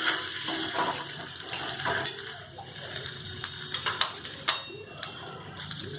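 Water being poured into a cooking pot for rasam, with a few light knocks against the vessel.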